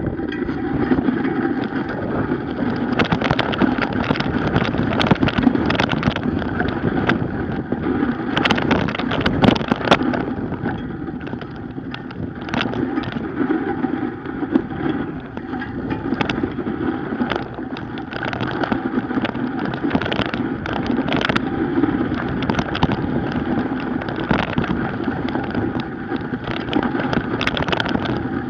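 Knobby mountain-bike tyre rolling over packed snow: a steady rolling hum, crossed throughout by short crunches and clicks as the bike goes over bumps.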